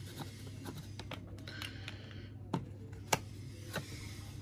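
A handful of sharp plastic clicks and taps as silver coins in plastic capsules are set into the slots of a velvet-lined presentation case, the loudest about two and a half and three seconds in, over a steady low hum.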